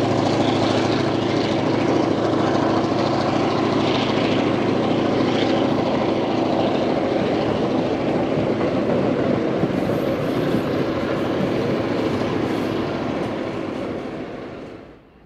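Passenger train running past: a steady rumble of carriages on the rails with the steady low drone of a diesel locomotive's engine. The sound drops away sharply near the end.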